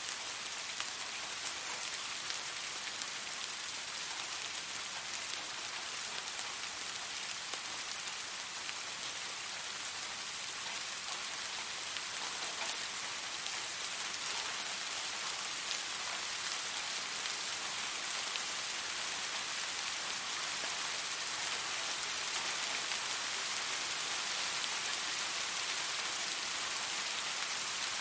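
Steady gentle rain falling, an even hiss with scattered individual drops pattering on a surface.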